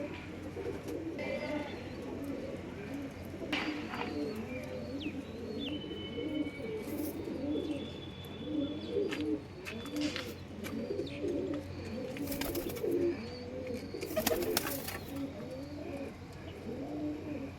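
A flock of domestic Punjabi Malwai pigeons cooing, many low arching coos overlapping without a break. A few short sharp noises cut in now and then.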